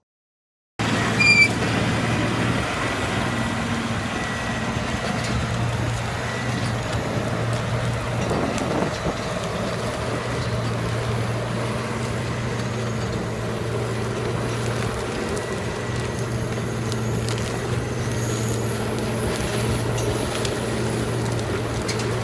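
A heavy machine's engine running steadily, a continuous low hum under broad mechanical noise. It starts abruptly about a second in, with a brief louder moment right after.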